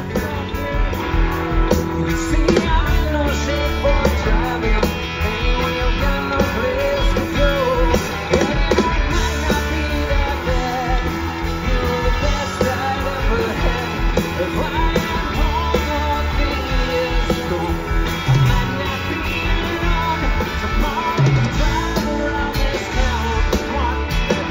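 Live rock band: a male lead singer over electric guitars, bass guitar and drums, heard loud through an outdoor concert PA.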